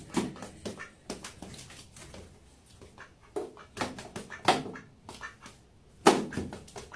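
A dog making short, irregular vocal noises and breaths.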